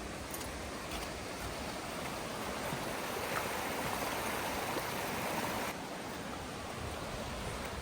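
Creek water rushing, a steady noise that swells a little in the middle and drops suddenly near the six-second mark.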